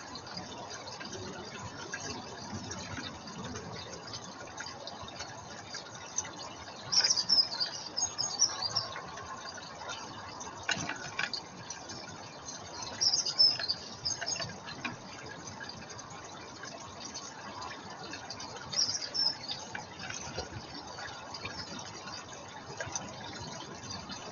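Garden birds at a pond make short high-pitched sounds in three brief clusters, about a third, a half and three-quarters of the way through, with a few sharp clicks between, over a steady hiss.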